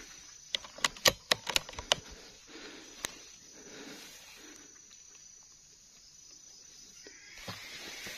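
A quick run of about seven sharp clicks or snaps in the first two seconds and one more a second later, over a steady high-pitched insect drone; a soft thump comes near the end.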